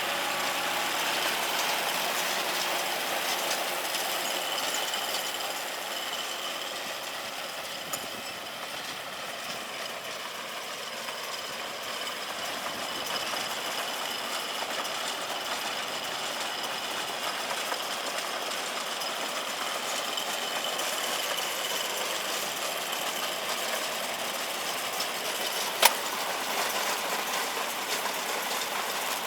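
Tractor engine running steadily with a round straw baler's machinery rattling, and a sharp click about 26 seconds in.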